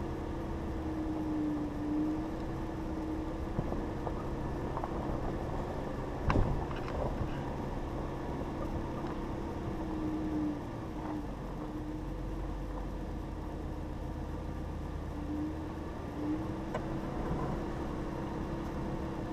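2015 Jeep Grand Cherokee driving slowly on a rough dirt track: a steady engine hum that wavers now and then over the low rumble of tyres on gravel and leaves. A sharp knock about six seconds in is the loudest moment, with a few lighter knocks after it.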